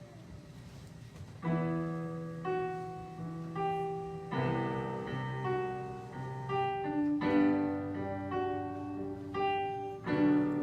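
Piano playing a slow passage of held chords with single melody notes over them, coming in about a second and a half in after a brief lull.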